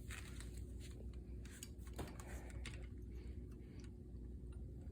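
Faint handling noise: light clicks and scraping as small fittings on an airbrush compressor's regulator assembly are pushed and seated by hand, with a sharper click about two seconds in, over a low steady hum.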